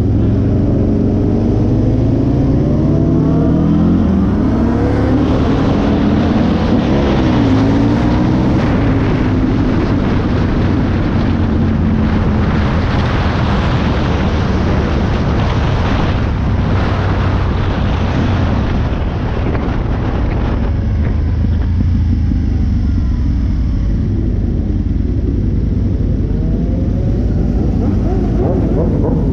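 Aprilia sport bike engine accelerating through the gears, its pitch rising in repeated sweeps over the first few seconds. Heavy wind rush over the microphone then takes over at speed, and the engine revs up again near the end.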